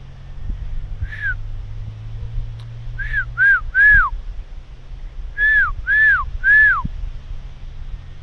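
A person whistling to call a dog: short whistled notes, each rising a little and then dropping in pitch. There is one note, then a quick run of three, then three more.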